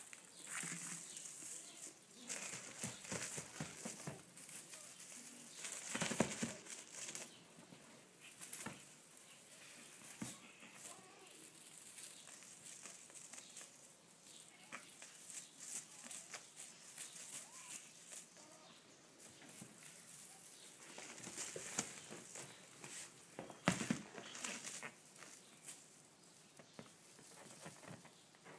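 Kitten playing with a wand toy on a leather armchair: soft, irregular rustling and scuffing with scattered clicks, and a few louder knocks, the biggest about six seconds in and again later on.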